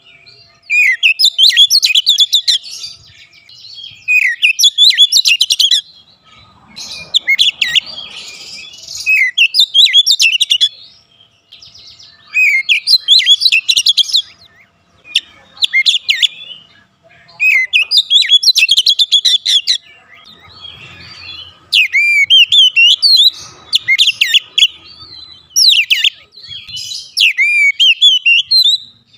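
Male Oriental magpie-robin singing: a loud, continuous run of rapid, varied whistled phrases, each a second or two long, separated by short pauses.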